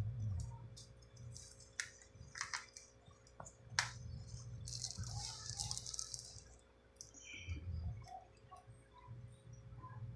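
Faint handling sounds around plastic fish bags floating in an aquarium: a few light clicks in the first four seconds, then a brief rustle about five seconds in.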